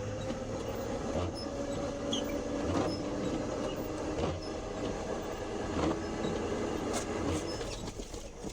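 A vehicle engine running steadily: a low rumble with a hum that slowly rises a little in pitch, and light knocks about every second and a half.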